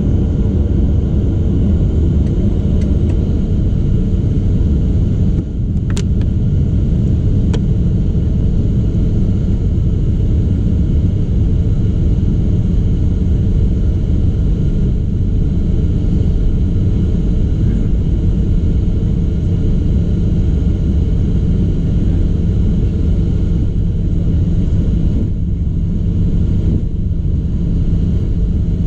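Cabin noise in a Boeing 737-800 taxiing: the steady low rumble of its CFM56-7B jet engines at taxi power, with a few faint steady tones on top. Two brief clicks come about six seconds in, a second and a half apart.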